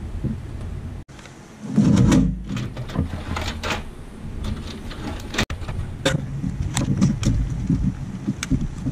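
Computer power-supply cables being handled and unplugged inside a metal PC case: rustling of the sleeved cables, plastic connector clicks and knocks against the case, with a burst of louder handling about two seconds in.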